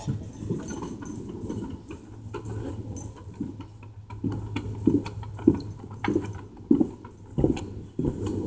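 Footsteps and a dog's paws on a wooden deck: irregular soft thuds with small clicks, over a low steady hum.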